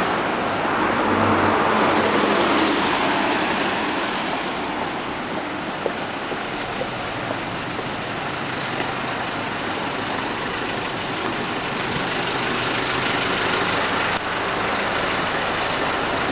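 Road traffic on a busy city street: a steady rush of cars and trucks driving by, with one vehicle passing louder in the first few seconds.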